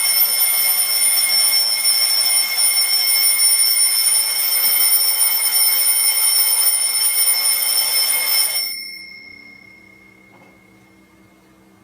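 Alarm clock bell ringing loud and steady, a continuous high ringing that cuts off suddenly about nine seconds in.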